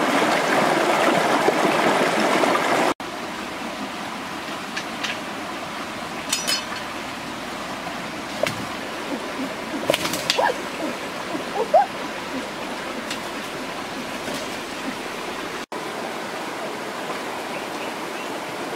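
Running water, a steady rushing noise. It is louder for about the first three seconds, then drops to a softer flow with a few scattered clicks and short chirps.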